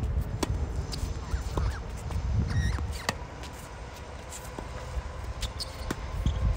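Tennis ball struck by rackets on a serve and the following baseline rally: sharp hits with bounces between them, spaced about every second or so, over a steady low rumble.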